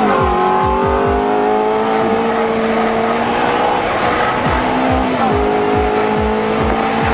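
Ferrari F430's 4.3-litre V8 running hard at high revs. Its pitch climbs slowly, drops once about five seconds in as if on an upshift, then climbs again. Music with a thumping beat plays behind it.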